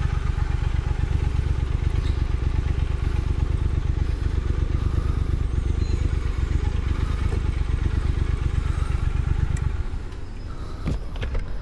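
Triumph Thruxton FE's 1200 cc parallel-twin engine running through its stock exhaust with the catalytic converter still fitted, then cutting off about ten seconds in, followed by a couple of clicks.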